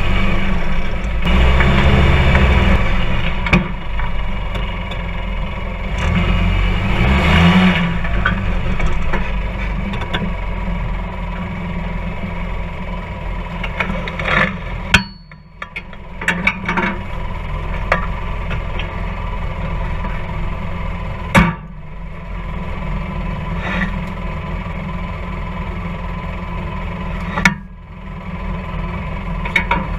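Polaris RZR 4 side-by-side's engine running, heard from inside the open cab, with the revs rising and falling about seven seconds in, then running steadily. There are a few sharp knocks and two brief dips in the sound, one near the middle and one near the end.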